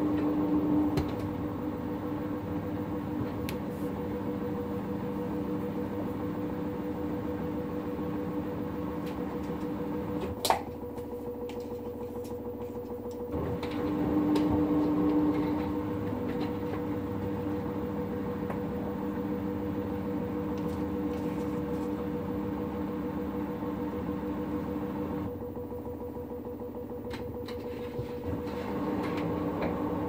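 LG front-loading washing machine running in the prewash of a 60 °C Staincare cycle: a steady mechanical hum with a higher whine. The hum drops away for a few seconds about ten seconds in, with a sharp click, and again near the end before picking up.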